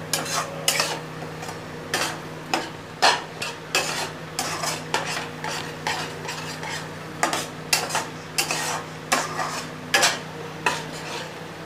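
A spatula scraping and stirring a spice masala in a kadhai as it fries with a sizzle, in irregular scrapes and knocks against the pan. The masala is being bhuna, fried down until it is cooked through.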